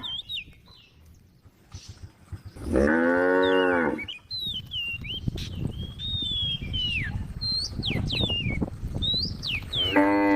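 Cattle mooing: one long, loud moo about three seconds in, and another beginning just at the end.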